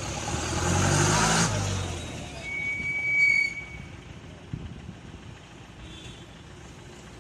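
A road vehicle passing close by, its engine and tyre noise swelling and fading over about two seconds. A short, steady high tone sounds about three seconds in, then a low steady rumble of road traffic.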